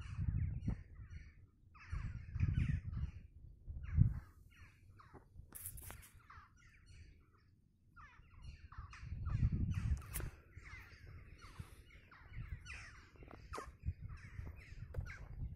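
Birds calling with many short, repeated calls, a flock of crow-like birds, with low rumbling on the microphone now and then.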